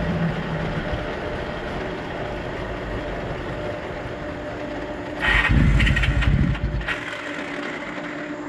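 Honda VF1000 V4 motorcycle engine in a homemade buggy running, then surging loudly and unevenly for about two seconds past the five-second mark before its low rumble falls away. The engine is starved of fuel because the fuel line was left shut off.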